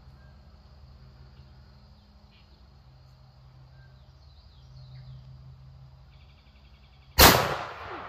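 A single shot from a Citadel Boss 25 semi-automatic 12-gauge shotgun about seven seconds in, sharp and loud, its echo tailing off over the next second.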